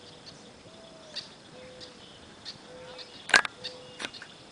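Faint outdoor ambience with four soft, short whistled calls and scattered light ticks. A sharp click a little after three seconds in, and a lighter one soon after, are the loudest sounds.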